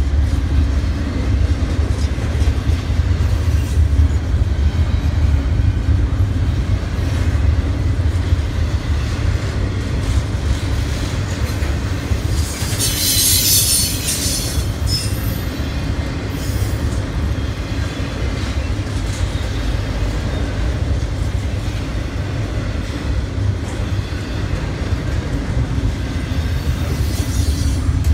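Freight train cars rolling past with a steady low rumble and wheel clatter. A brief high-pitched wheel squeal comes about halfway through.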